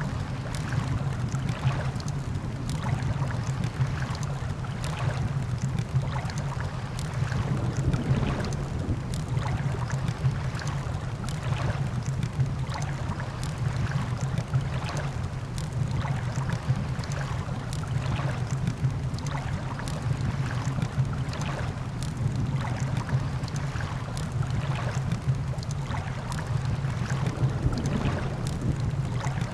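Campfire crackling with frequent sharp pops, layered over a steady low rush of beach surf and wind.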